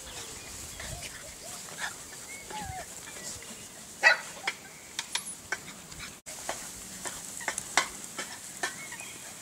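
A litter of puppies giving scattered short yips and little whining squeaks over a faint steady hiss, the sharpest yip about four seconds in.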